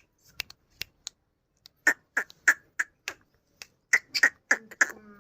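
Pet parrot making a run of short, sharp clicks and chirps, bunched in two quick clusters partway through and near the end.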